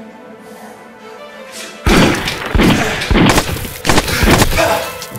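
Pistol gunshots over a film score: the music runs quietly at first, then about two seconds in a rapid run of about six loud, sharp shots follows, each with a short echo.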